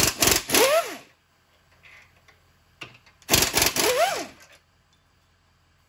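Handheld power ratchet run on a bolt in two short bursts, one near the start and one about three and a half seconds in. Each is a rapid mechanical chatter with a whine that rises and then falls.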